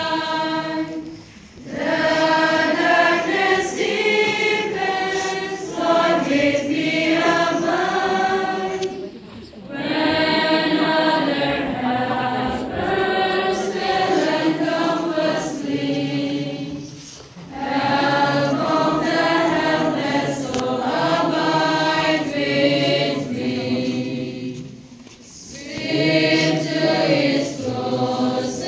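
A choir of women's voices singing a funeral hymn in long phrases, with brief pauses for breath about every eight seconds.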